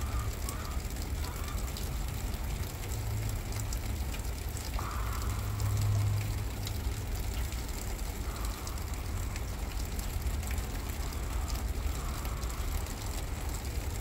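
Gusty wind buffeting the microphone: a steady low rumble that swells about six seconds in, with faint scattered ticks over it.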